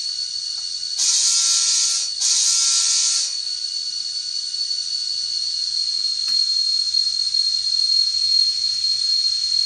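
Sound decoder of an N scale EMD GP30 model locomotive playing its diesel horn in two blasts of about a second each, over a steady, hissy diesel engine sound from the model's tiny speaker. A faint low rumble builds from about two-thirds through.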